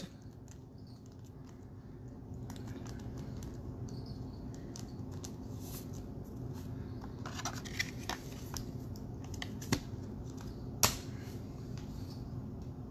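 Small plastic clicks and handling of a trading card being fitted into a magnetic one-touch card holder and the case pressed shut, with several sharper clicks in the second half, the loudest near the end. A steady low hum sits underneath.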